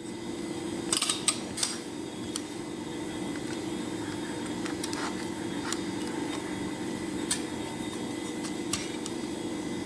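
Handheld rotary cable stripper being turned around a thick cable, its blade scraping steadily through the insulation, with a cluster of sharp clicks from the tool about a second in and a few single clicks later.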